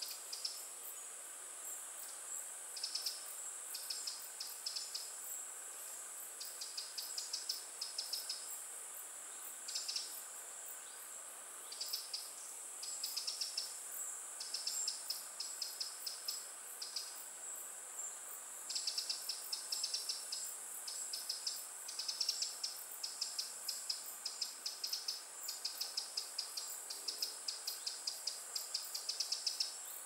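Insects stridulating: a steady high-pitched buzz, with bouts of rapid pulsing chirps that start and stop every second or two and come more often in the second half.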